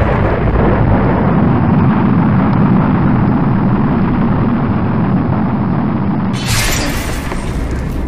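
Rocket-launch sound effect: a loud, steady rumbling roar that cuts off about six seconds in. A sharp, bright crackling burst follows it, like an electric zap.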